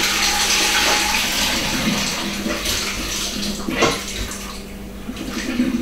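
Hot cooking water and boiled chicken poured from a pot into a colander in a stainless-steel sink, splashing and draining away, loudest at first and tapering off, with a single knock a little under four seconds in.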